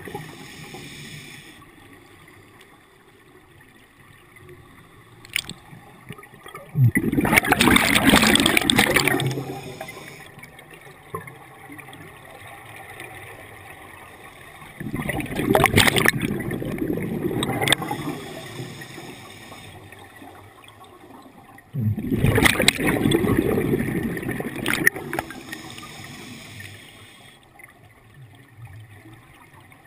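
Scuba diver breathing underwater through a regulator: three rushes of exhaled bubbles about seven seconds apart, each lasting two to three seconds, with quieter stretches between breaths.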